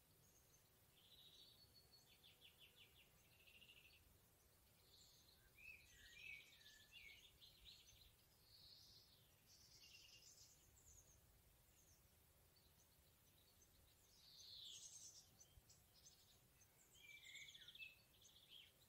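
Faint woodland birdsong, with several small birds singing at once in high chirps and quick trills. Louder phrases come about six seconds in, around fifteen seconds, and near the end.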